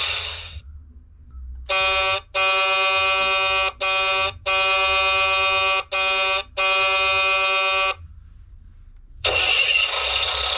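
Electronic horn sound effect of a 2022 Hess Flatbed Truck toy, played through its small speaker: six honks on one steady pitch, sounding as three pairs of a short honk followed by a longer one. About nine seconds in, the toy's noisy engine-start sound effect begins.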